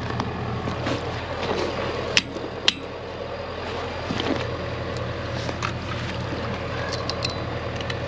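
Water sloshing as a long-handled scoop is worked through a rubber-tire cattle water trough, with two sharp knocks of the tool about two seconds in. A tractor engine idles steadily underneath.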